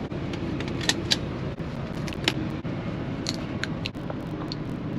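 A steady low hum inside a semi truck's sleeper cab, with scattered light clicks and rustles from a seatbelt and fabric being handled.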